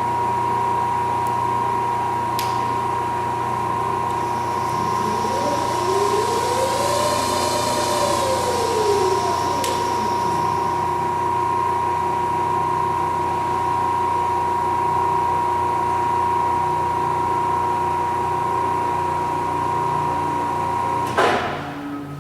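Welding positioner's electric drive running with a steady whine and low hum. A whine rises and falls in pitch once in the middle, and the machine stops with a sharp click about 21 seconds in.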